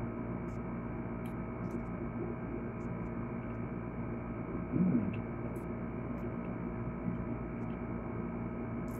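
Steady electrical hum with several steady tones, with faint scattered clicks and a brief low sound about five seconds in.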